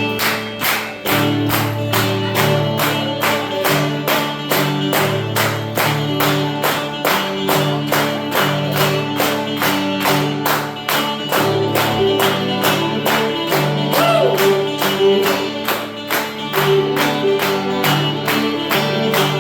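Folk instrumental of acoustic guitar and fiddle playing held chords, with sharp percussive clicks on a steady beat, about three to four a second.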